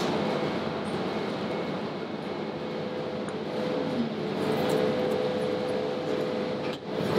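Steady rushing hum of commercial kitchen ventilation, with a faint steady tone in it; it dips briefly near the end.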